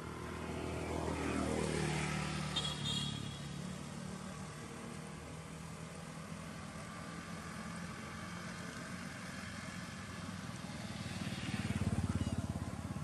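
Motorbike engines passing by. One goes past early with its pitch falling, and another draws close and grows louder near the end.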